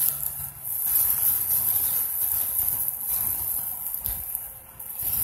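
Insects calling in a steady, high-pitched chorus.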